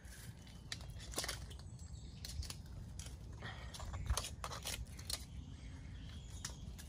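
Scattered sharp clicks and snaps at irregular intervals, over a steady low rumble.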